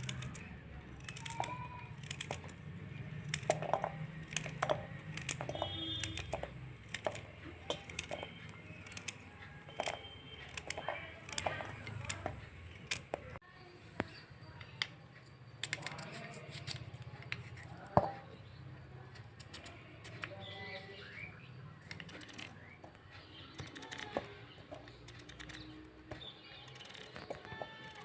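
Irregular clicks and knocks of kitchen utensils against a cooking pot, with birds chirping now and then in the background.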